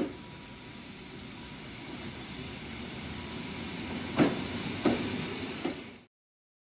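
Red EN57 electric multiple unit running along the platform: a steady rumble that grows slowly louder as it comes close, with a few sharp knocks in the last two seconds. The sound cuts off abruptly near the end.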